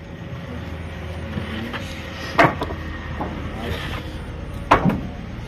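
Sawmill band saw running with a steady low hum, while two loud knocks, about two seconds apart, come from timber being handled at the saw.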